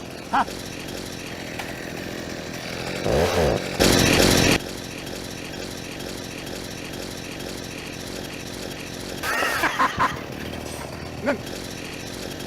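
A motor runs steadily, like a power tool. A much louder, noisy burst comes about three seconds in and lasts about a second and a half. Several short, sharp sounds follow near the end.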